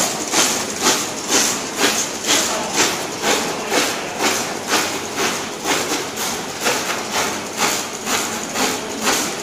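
Automatic label printing machine running in its cycle, each stroke a clack, repeating evenly at about two strokes a second.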